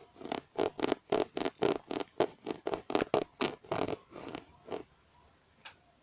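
Keys of a battery-powered computer keyboard tapped in a quick, even run of clicks, about three or four a second, stopping about five seconds in.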